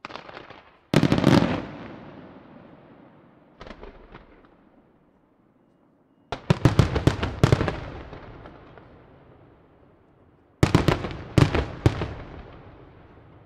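Aerial fireworks shells bursting in the sky in groups of sharp bangs. Each group trails off in a long rumbling echo. The densest volleys come in quick succession about six seconds in and again near the end.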